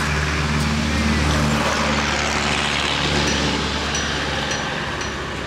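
A motor vehicle with a low engine hum passes by, its sound swelling about a second in and then slowly fading. Faint, short high peeps repeat in the second half.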